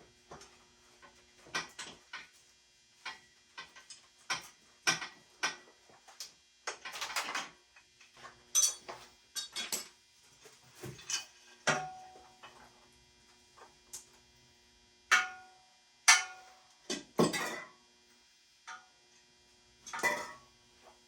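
Metal tools and motorcycle parts clinking and clanking during disassembly: irregular sharp knocks, a few of them ringing briefly, over a faint steady hum.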